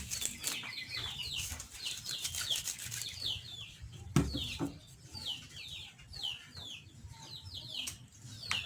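Birds chirping: rapid, repeated high calls that each slide downward, several a second, with a few sharp knocks mixed in.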